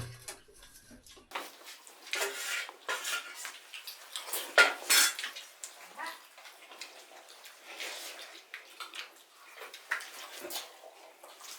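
Dishes and utensils clinking and scraping irregularly during a meal, with the sharpest clinks about five seconds in.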